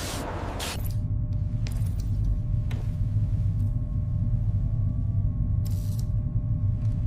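Heavy shipboard cable-laying machinery such as a winch running with a steady deep rumble and a faint hum. Short hisses break in now and then, twice near the end.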